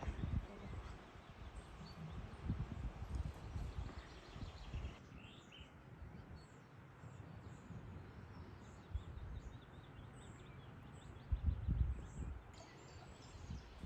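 Outdoor background noise with irregular low rumbles, and faint small-bird chirps from about five seconds in.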